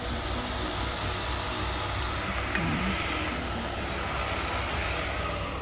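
Steady sizzling and hissing of squash and shrimp cooking in an uncovered pot, over a steady low hum.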